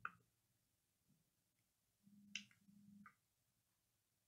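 Near silence broken by about three faint, sharp clicks, with a faint low hum under the middle two.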